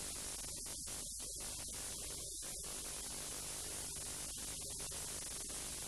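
Steady hiss and low mains hum from an old videotape soundtrack, with no other sound.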